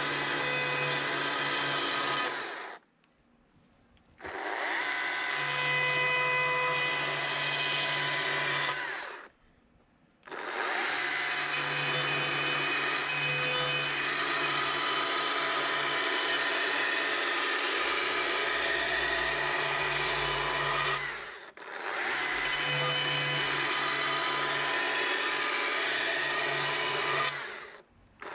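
Stihl chainsaw running at high speed while the tip of its bar cuts straight lines about a quarter inch deep into a thin board. The saw sound breaks off abruptly a few times, for about a second each.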